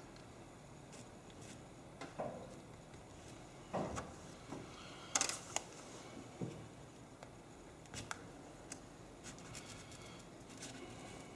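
Scattered small clicks, taps and scrapes of hand prying tools and an iPad 2 being handled on a heated aluminium screen-separator plate, the sharpest click about five seconds in.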